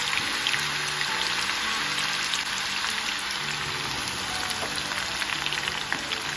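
Freshly sliced raw onions deep-frying in a pan of hot oil: a loud, steady sizzle with many small crackling pops as they go into the oil.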